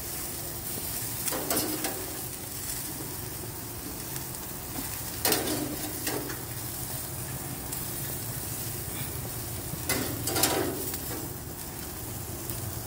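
Steady sizzling hiss of food on a hot gas grill, with a serving spoon scraping and scooping grilled food onto a platter three times, about four seconds apart.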